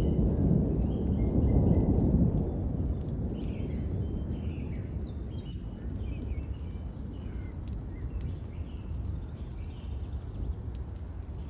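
Thunder rumbling, heaviest in the first two seconds and then slowly dying away, with birds chirping throughout.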